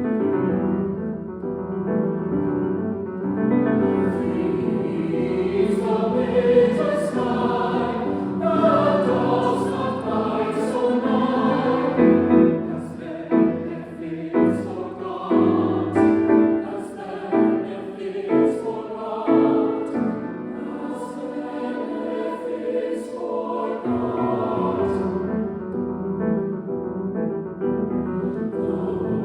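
Mixed choir singing a classical choral piece with piano accompaniment. The singing pulses in short, rhythmic accented phrases through the middle.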